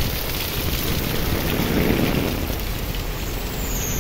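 Heavy rain falling on a flooded street and pavement, a steady hiss of downpour.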